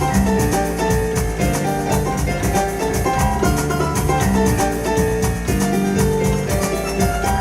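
Yamaha Electone electronic organ playing an up-tempo, danceable instrumental, with keyboard melody and bass lines over a steady drum beat.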